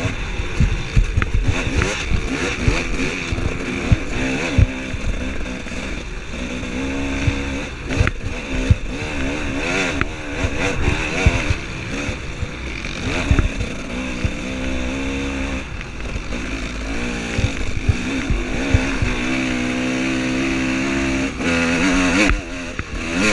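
Dirt bike engine revving hard at race pace, its pitch repeatedly climbing and dropping as the rider works the throttle and gears, with scattered sharp knocks.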